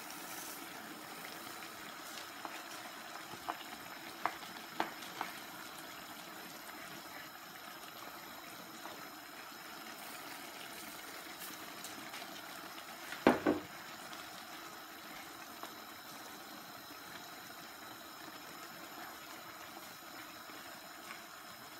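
Paella broth simmering steadily in a wide pan. A few light clicks come a few seconds in, and there is one sharp knock about thirteen seconds in.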